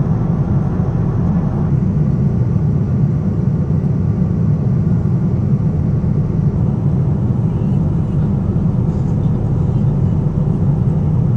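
Steady, loud, low drone of a travelling vehicle, even and unbroken.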